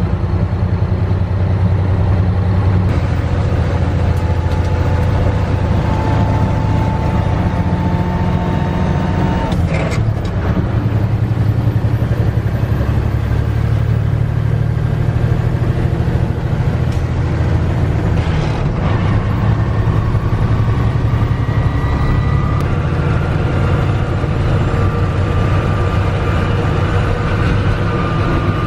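1982 Mack R-Series truck's diesel engine pulling hard, heard inside the cab, with a thin whine that climbs slowly as the truck gathers speed. About ten seconds in the drone breaks briefly with a click as the ten-speed crash box is shifted, then it pulls again.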